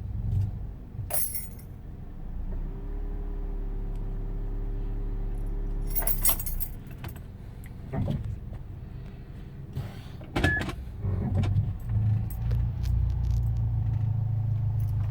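Proton Inspira's four-cylinder engine running at a steady idle, a low even hum, with scattered metallic clicks and jingles over it.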